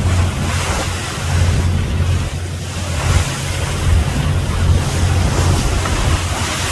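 A passenger boat under way: its engine drones low and steady beneath the rush of churning water along the hull, with wind buffeting the microphone.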